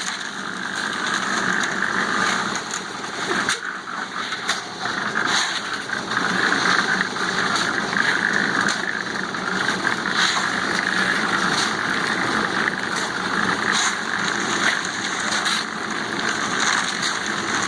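Engine-driven machinery running steadily at a concrete pour, a dense churning din with a few scattered knocks.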